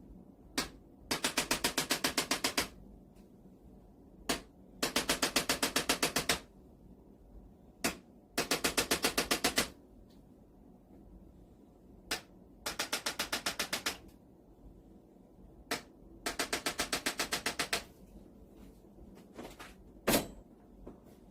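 Handheld chiropractic adjusting instrument firing runs of rapid taps, about ten a second for a second and a half at a time, five times over, each run preceded by a single sharp click; one more sharp click comes near the end.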